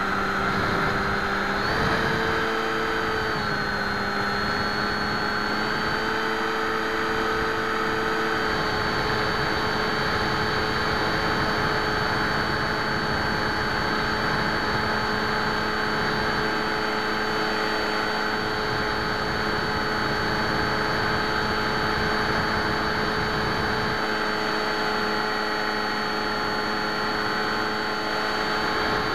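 Electric motor and propeller of an FX61 flying wing in flight, picked up by the onboard camera: a steady whine over rushing air. The pitch steps up and back down twice in the first nine seconds as the throttle changes, then holds steady.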